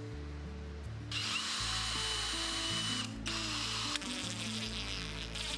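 Power drill driving black screws into plywood: the motor whines for about two seconds, stops briefly, then runs again in a shorter burst, followed by a softer stretch.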